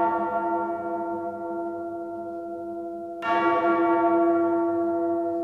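A large bell tolling: still ringing and fading from a stroke just before, then struck again about three seconds in, its steady ringing tones slowly dying away.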